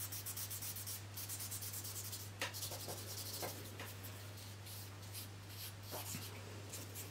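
Charcoal stick scratching and rubbing across paper in quick back-and-forth shading strokes, about ten a second for the first two seconds, then slower, separate strokes. A steady low hum runs underneath.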